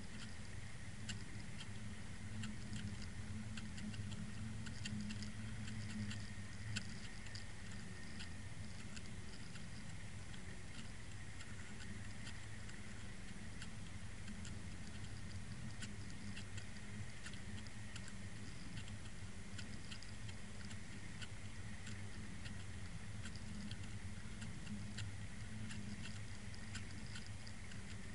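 Underwater sound picked up by a Water Wolf camera towed through the water at about 2.5 knots: a steady low hum with a constant hiss and frequent small irregular clicks.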